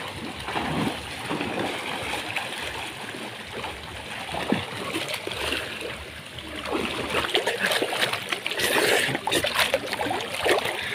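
Water pouring from fountain spouts into a pool, a steady rushing splatter, with splashing close by that grows heavier in the second half.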